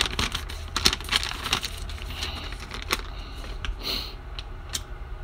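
Light clicks and rustles of a sheet of paper being handled over a metal tin can, a quick run of them in the first second and a half, then single ones, over a steady low hum.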